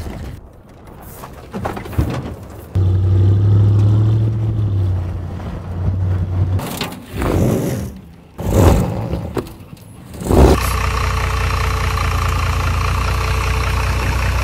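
Off-road pickup crawling over a rocky trail, with swells of tyre crunch and scrape on rock. After a cut about ten seconds in, a steady engine-like hum.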